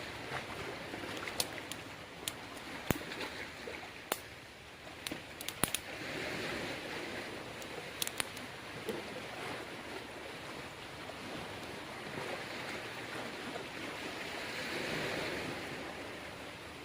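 Water washing against the shore, swelling and fading twice, with scattered sharp clicks and taps over it.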